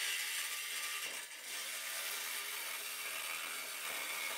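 Corded DeWalt reciprocating saw running steadily with a bent blade, cutting through a welded aluminium flange to take it off flush with the frame; the rasp of the blade in the metal dips briefly a little after a second in.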